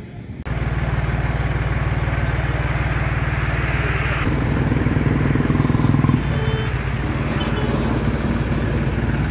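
Force Orchard mini tractor's diesel engine running with a steady, even throb that starts abruptly about half a second in. Its note becomes fuller about four seconds in as it works harder, and it shifts again around six seconds in.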